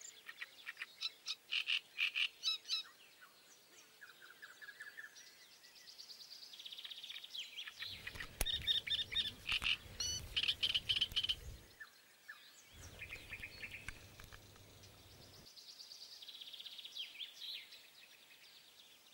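Animal calls: quick rattling trains of high chirps that come again and again, with two spells of low rumble in the middle.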